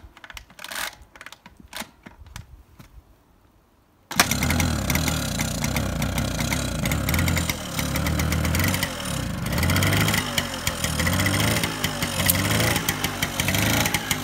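Honda Express NC50's 49 cc two-stroke single being pedal-cranked with a few clicks and knocks. About four seconds in, it catches abruptly on its first start in 25 years and keeps running, its revs rising and falling unevenly.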